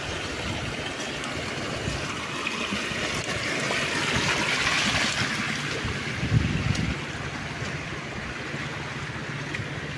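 Muddy floodwater pouring over a low concrete weir, a steady rushing wash that swells toward the middle and eases off about seven seconds in. A brief low thump comes just before it eases.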